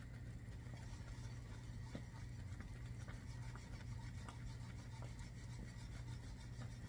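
A flat whisk scraping and rubbing around a stainless steel saucepan as boiling fudge is stirred constantly, close to 234 °F. It makes faint, repeated strokes over a steady low hum.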